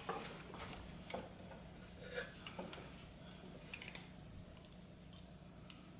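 A handful of faint, irregular clicks and taps from a pair of pliers and a spring hose clamp being handled while fitting a rubber fuel line.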